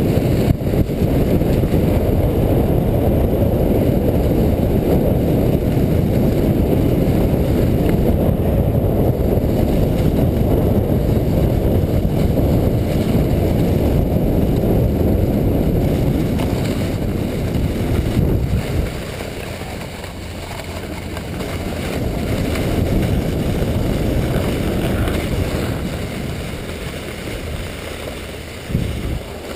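Rodel sled runners scraping over groomed snow, with wind buffeting the sled-mounted camera's microphone at speed: a steady noise that drops off about two-thirds of the way through as the sled slows, with a brief bump near the end.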